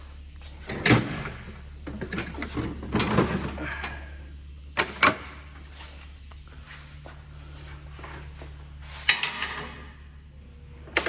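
Knocks and clatter of hand tools and metal parts being handled during work on a truck's wheel hub: a few separate clunks, two sharp knocks about halfway through and a last clatter near the end, over a steady low hum.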